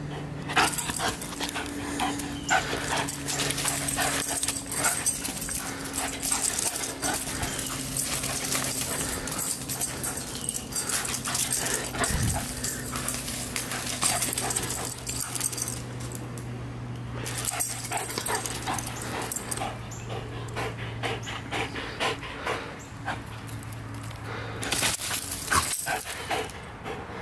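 A greyhound running and spinning on dry dirt strewn with fallen leaves: rapid paw footfalls and rustling leaves, pausing briefly about two-thirds of the way through. A steady low hum runs beneath.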